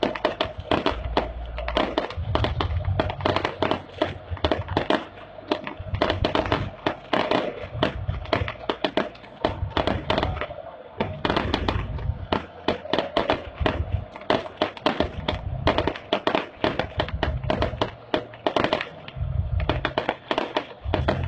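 Fireworks and firecrackers going off in a dense, irregular barrage of sharp cracks and bangs, several a second, over a continuous din from the stadium.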